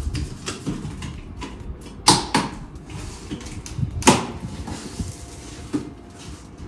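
Packing tape on a cardboard carton being slit with a key and the flaps pulled open: scraping and rustling with several sharp rips and knocks, the loudest about two and four seconds in.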